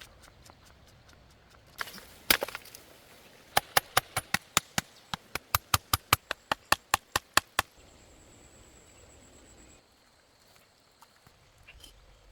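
A rapid run of about twenty sharp chopping strikes, about five a second, after a few scattered knocks.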